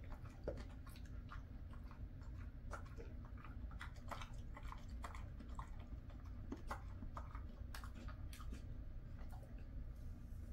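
Jindo dog chewing a dried elephant fish tail, with many irregular crunches and cracks, several a second.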